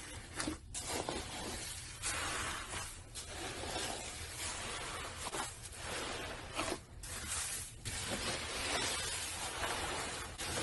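Hands pressing and kneading floam, slime packed with tiny foam beads, giving a dense crunchy crackle that comes in repeated surges with each squeeze.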